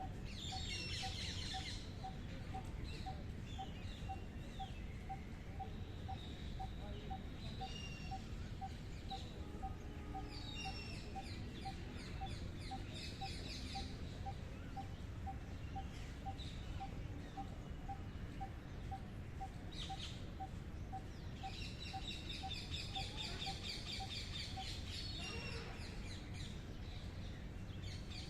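Wild songbirds singing in bursts of high, rapid trilled phrases, several seconds apart. Beneath them a faint single note repeats evenly about three times a second until near the end, over a steady low background rumble.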